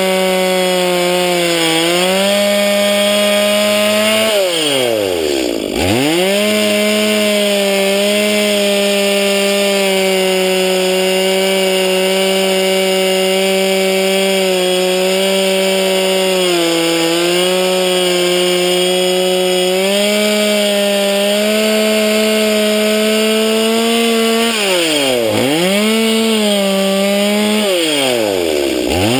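Stihl MS170 chainsaw's small single-cylinder two-stroke engine held at high revs while cutting into a tree. The revs fall steeply and climb back about five seconds in, and twice more near the end.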